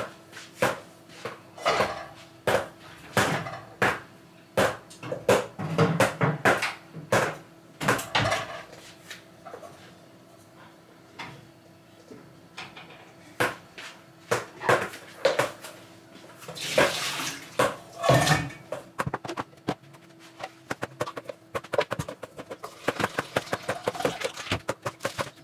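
Dishes and cutlery clinking and knocking as they are handled, with water running from a tap in two stretches, about two-thirds of the way in and again near the end. A faint steady hum sits underneath.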